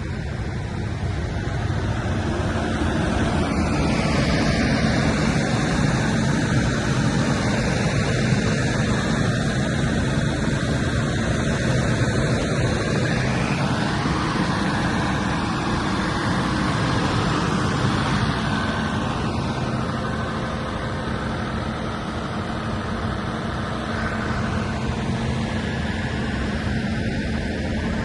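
90 kVA Perkins diesel generator running steadily at constant speed. It grows louder over the first few seconds, then holds an even pitch.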